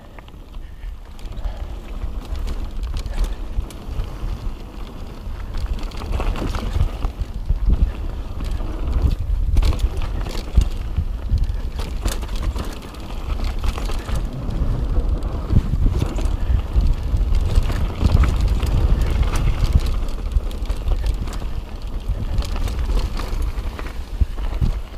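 Mountain bike descending a dirt singletrack at speed: wind rumbling on the microphone, with frequent short rattles and clacks from the bike and its tyres over roots and rocks. The bike is a Kona Process full-suspension trail bike.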